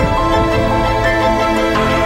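Background music of sustained chords, changing just after the start and again shortly before the end.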